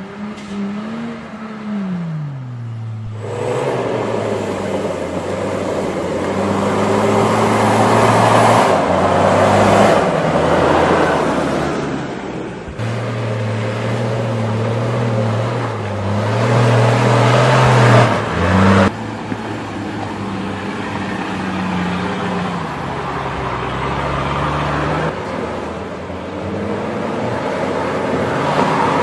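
4x4 SUV engines running under load at fairly steady revs, with a rushing noise over them; the sound changes abruptly several times, as one driving clip cuts to another.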